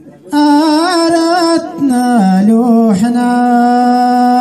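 A single man's voice chanting a line of tanḍamt, Amazigh sung poetry, into a microphone. It starts a moment in and holds long notes with wavering, ornamented turns, breaking off briefly twice.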